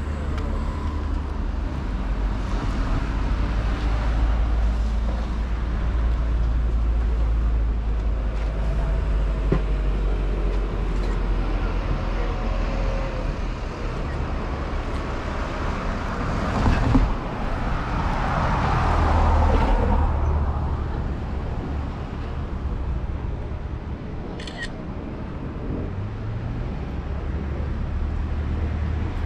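Road traffic: a steady low rumble, with one vehicle passing about two-thirds of the way through, swelling and falling in pitch as it goes by. A brief high chirp follows a few seconds later.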